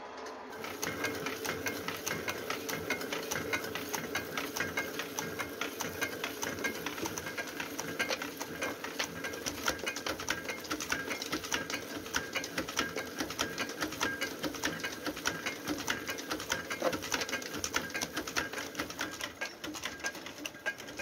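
A small machine running with a rapid, even clatter of many ticks a second.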